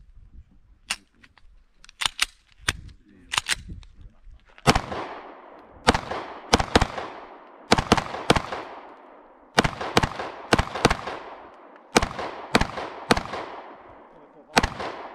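Pistol fired in quick strings, about twenty shots, mostly in close pairs (double taps), each crack followed by a fading echo.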